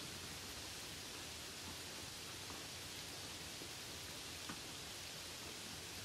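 Light rain: a steady, even hiss of falling rain with a few faint drop ticks, one about four and a half seconds in.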